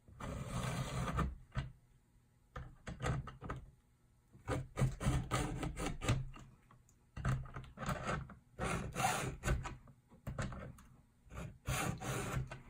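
Stihl 2-in-1 chainsaw sharpener filing a Stihl MS 261 C-M's chain: a round file sharpens each cutter while a flat file takes down its raker. About seven gritty push strokes come with short pauses between them.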